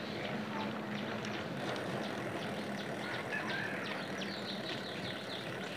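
Steady road and wind noise of a bicycle being ridden, with a faint hum low down for the first couple of seconds and a scatter of short high chirps.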